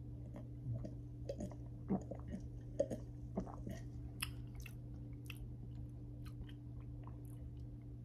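A person sipping an energy drink from a glass and swallowing: a run of small wet mouth clicks, gulps and lip smacks through the first five seconds or so, then only a few.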